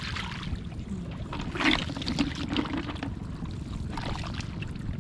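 Shallow water sloshing and splashing as it is stirred by hand, with the loudest splash about one and a half seconds in.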